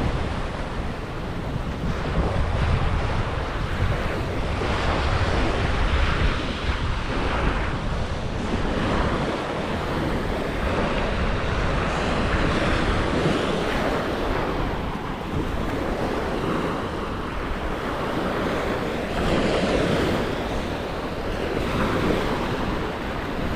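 Surf washing onto the beach in slow swells, mixed with wind buffeting the microphone in low rumbles.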